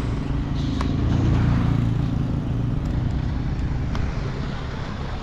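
Tipper truck's diesel engine running, getting louder about a second in and easing back a second or so later.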